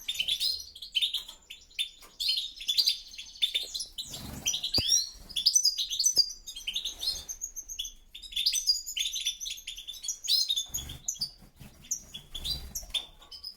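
European goldfinches twittering and singing in quick, rapid chirps and trills without pause, with a male chasing off a rival male from his territory.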